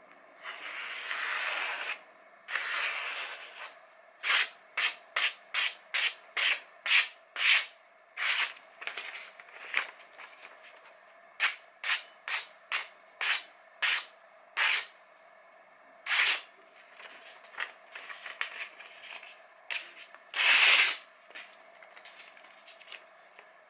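Kitchen knife slicing through a sheet of glossy catalogue paper held in the air: a cut test of the edge's sharpness. Two longer swishing slices, then quick runs of short slices at about two a second, with a longer, louder slice near the end.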